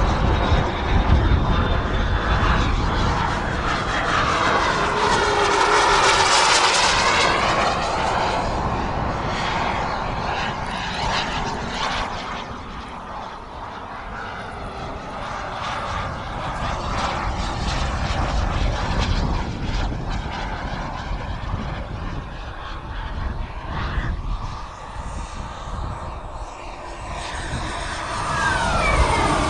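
Kingtech K-160G2 model jet turbine of an RC jet flying overhead, a steady jet whine and rush that swells as the jet passes close about five seconds in, fades while it is further off, and swells again near the end with a falling pitch as it sweeps past.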